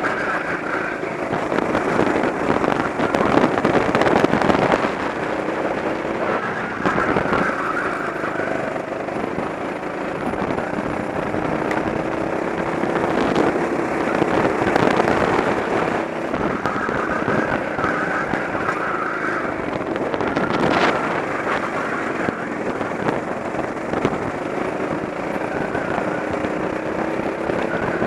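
Go-kart engine heard from a camera on the kart, its note climbing slowly as it accelerates and dropping again several times as it laps, under a heavy rush of wind and road noise.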